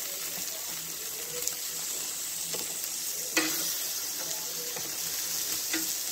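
Sausages sizzling on a barbecue grill: a steady hiss of frying fat with occasional sharp pops, the loudest about three and a half seconds in.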